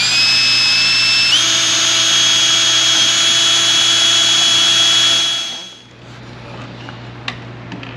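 Cordless drill spinning up with a rising whine, stepping up in pitch once more about a second in, then running steadily as it bores a rivet hole through the light bar's wind diffuser, and winding down after about five seconds. A few faint clicks follow.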